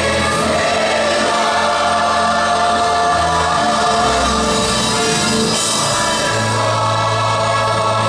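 Gospel choir singing sustained chords with orchestra accompaniment, over held bass notes that shift a few times.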